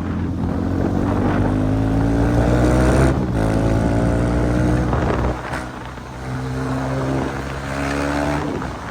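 KTM Duke 390's single-cylinder engine, run without its exhaust silencer, accelerating through the gears: loud, with the pitch climbing for about three seconds, breaking at a shift, then climbing again twice before dropping off near the end.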